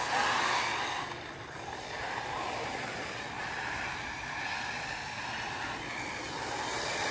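Arrma Typhon 6S brushless electric RC buggies racing on a dirt oval, heard as a steady rushing noise with no clear pitch.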